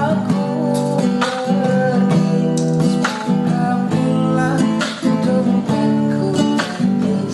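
Acoustic guitar being strummed, a steady run of chords with a new stroke every half second to second.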